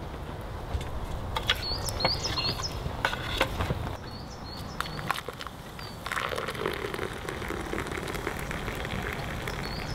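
Boiled water poured from a metal billy can into a wooden kuksa cup, a steady splashing trickle from about six seconds in. Before it, a few sharp clicks and knocks as the hot pot is lifted and handled on a stick.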